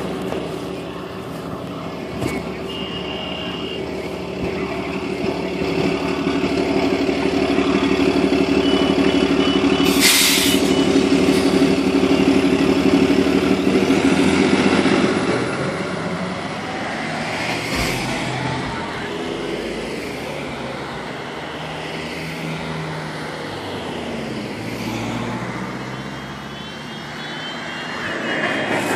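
2014 Gillig Advantage hybrid-electric transit bus, with a Cummins ISB diesel and Allison hybrid drive, pulling away: a steady engine drone builds as it goes by close, with a short air-brake hiss about ten seconds in. The drone then fades as the bus moves off down the road. A brief high beep sounds near the start.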